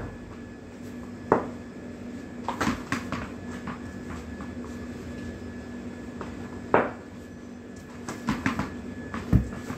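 Cricket bat knocking a ball and the ball bouncing on a hard floor: a few sharp single knocks and two short clusters of quicker taps, over a faint steady hum.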